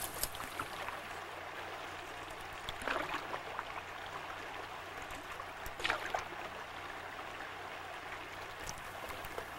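Canoe paddles working through shallow swamp water, with water moving steadily around the hulls and a few soft paddle strokes about three seconds apart.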